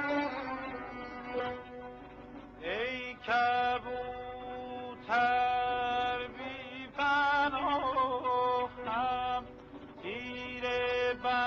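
Background music: a solo melody of long held notes, several swooping up into the pitch and some wavering, over a steady low drone, in short phrases with brief breaks between them.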